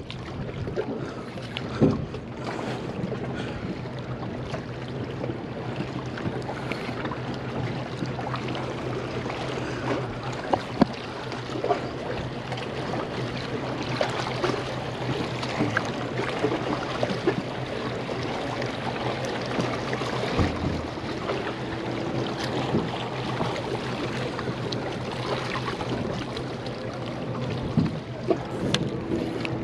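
A boat motor humming steadily out on the water over wind and waterside noise, its pitch shifting higher about two-thirds of the way through, with scattered small clicks and knocks.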